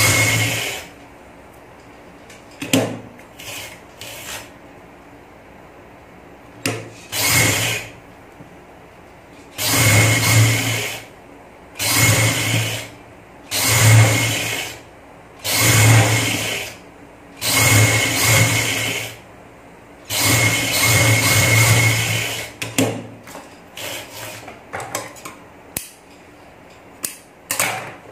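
Sewing machine stitching lace onto a trouser hem in about nine short runs of a second or two each, stopping and starting as the fabric is guided, the longest run near the end. Light clicks and fabric rustling follow in the last few seconds.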